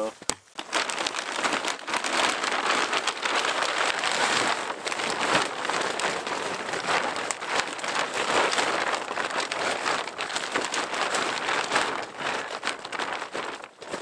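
Close rustling and crinkling of gear being handled and packed up, dotted with many small knocks and clicks.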